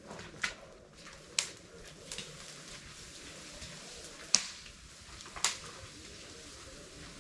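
A few sharp knocks and clacks at irregular intervals, the loudest about four seconds in, over a faint steady background.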